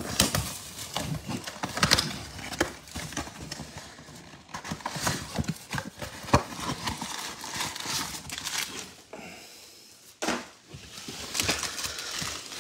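Foil-wrapped trading card packs sliding out of a tipped cardboard box and being handled and stacked on a table: irregular taps, knocks and light scraping, with one sharper knock about halfway.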